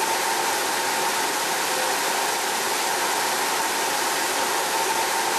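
Small micro-hydro turbine running: a jet of water from the supply pipe spins the turbine in its metal housing, giving a steady rushing hiss of spraying water with a steady high whine from the spinning turbine and generator.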